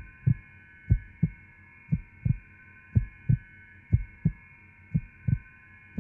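Heartbeat sound effect: a slow double thump, about one lub-dub a second, over a steady high drone.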